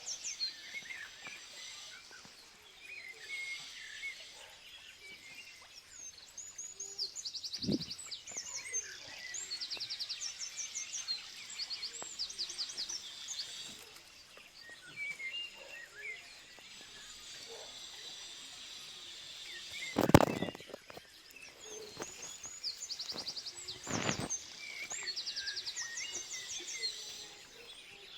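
Songbirds singing outdoors, with repeated high, rapid trills and scattered chirps over a faint background hiss. A few brief thumps cut across the birdsong, about 8 seconds in, then louder about 20 seconds in and again about 24 seconds in.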